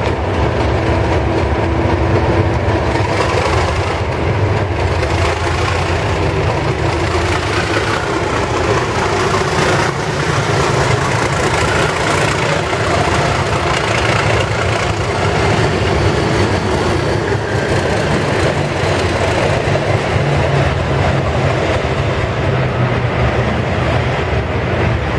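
Class 37 diesel locomotive's English Electric V12 engine running loud and steady as it pulls a test train away past the platform, with the train rolling by.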